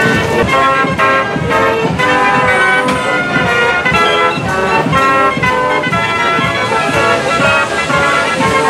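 Mechanical fairground organ playing a tune for a set of steam gallopers: bright sustained pipe-like notes in chords over a steady beat.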